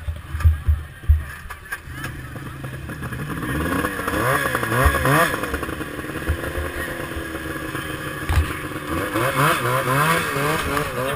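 A vintage snowmobile's two-stroke engine revving up and down in quick throttle blips, strongest about four to five seconds in and again near the end. A few sharp thumps come in the first second or so.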